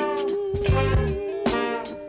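Music: an upbeat funk-style track with guitar, bass and drums over a steady beat, with one note held through.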